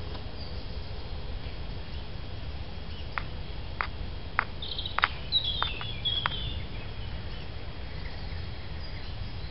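A knife cutting into sycamore bark to tap the tree for sap water: several sharp clicks and taps over a few seconds, starting about three seconds in. A bird chirps briefly in the middle, over a steady low background rumble.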